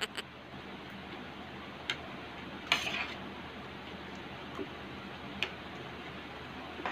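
Eating sounds from crispy roast chicken eaten by hand: a few light clicks spread through, and a short crackly crunch about three seconds in.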